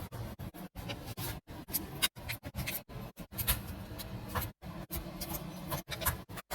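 Light scratching and small clicks over a low hum, broken by frequent brief dropouts.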